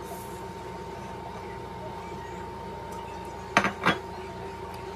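Ceramic dinner plate set down on a stone countertop: two sharp clacks in quick succession about three and a half seconds in, over a steady background hum.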